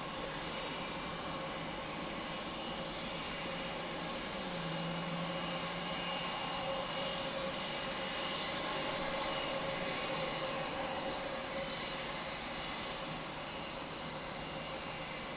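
A business jet's engines at takeoff power as it rolls and climbs away, a steady distant rush with a faint high whine, a little louder in the middle.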